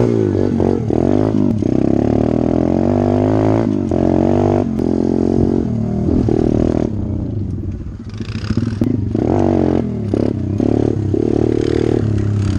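SSR 125 pit bike's 125cc single-cylinder four-stroke engine under way, its pitch climbing and dropping as it accelerates and shifts gears, with the throttle eased off briefly about eight seconds in.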